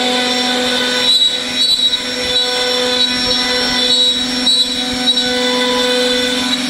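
CNC router spindle running at speed with a small bit cutting a groove in a hardwood board. A steady whine rides over a rough cutting noise that grows louder for a moment several times.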